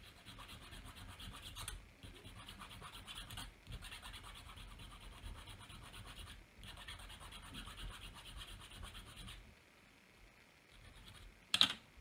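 Needle file rasping in quick, short strokes on a tiny 3 mm buckle held in pliers, thinning its sides down, with a few brief pauses. The filing stops a little over three-quarters of the way through, and a single sharp click follows near the end.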